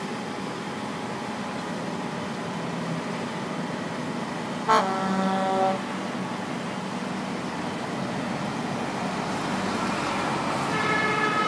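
Truck-mounted crane's engine running steadily. A short horn-like toot comes about five seconds in, and a higher, longer tone swells up near the end.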